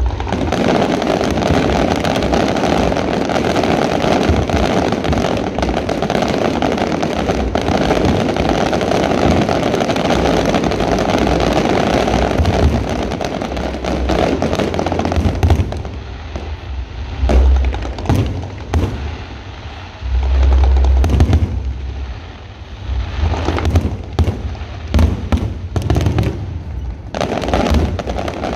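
Aerial fireworks display: many shells bursting in a dense, continuous crackling rattle for about the first half, then thinning to separate bangs and deep booms before building up again near the end.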